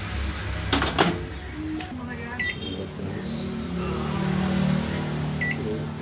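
Microwave oven door latching shut with a couple of sharp clicks about a second in, then short beeps from the keypad as a cooking time is entered.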